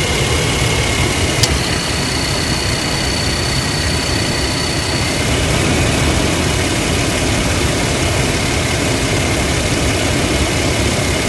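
Toyota Land Cruiser 120 engine idling steadily, with a constant high-pitched cricket-like tone over it: an extraneous noise at idle. About a second and a half in, a sharp click comes, followed by a thinner, higher tone that lasts a few seconds.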